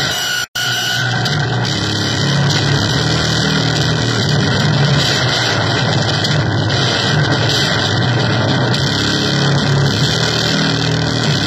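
Harsh noise music from keyboard and drum machine: a loud, dense wall of electronic noise over a steady low hum, cutting out for an instant about half a second in.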